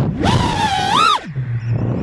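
Emax 2205 2600kv brushless motors of an FPV quadcopter whining in flight. The pitch rises to a peak about a second in, then drops sharply as the throttle is cut, leaving a low steady hum.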